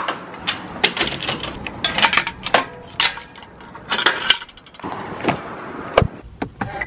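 A bunch of keys jangling, with the clicks and rattles of a screen-door lock and handle and a metal gate latch. A heavy thump about six seconds in, at the car door.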